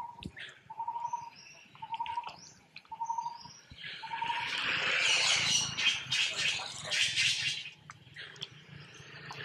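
A bird repeats a short, clear note about once a second. About four seconds in, a louder, harsh, noisy sound with rapid pulses takes over for about four seconds, then fades.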